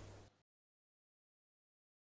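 Near silence: a faint room hum stops about a third of a second in, and then there is no sound at all.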